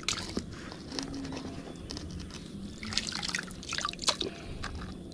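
Water dripping and splashing in short, irregular bursts, thickest around three to four seconds in.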